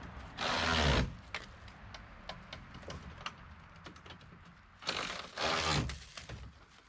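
Handling noise from dredge parts being fitted together: scattered small clicks and knocks, with two louder rustling bursts, one about half a second in and one about five seconds in.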